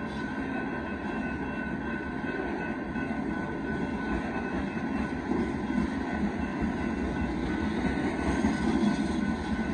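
Loaded rock cars of a Union Pacific freight train rolling steadily past, steel wheels rumbling and rattling on the rails, a little louder near the end.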